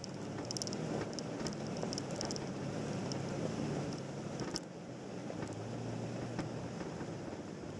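Off-road vehicle's engine running at low speed as it crawls over a rocky dirt trail, a steady low hum under tyre and gravel noise, with wind on the hood-mounted microphone. A sharp knock about four and a half seconds in, likely a stone under the tyres.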